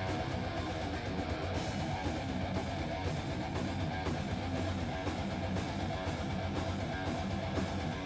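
Live metal band playing loud, full-band music: electric guitar, bass guitar and drums.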